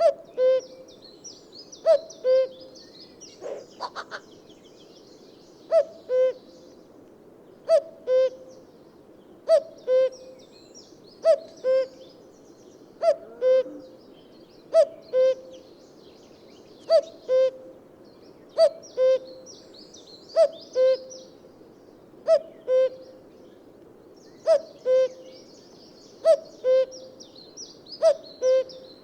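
Male common cuckoo calling its two-note "cuck-oo": a higher note falling to a lower one, repeated about every two seconds. Other small birds twitter faintly and high in the background.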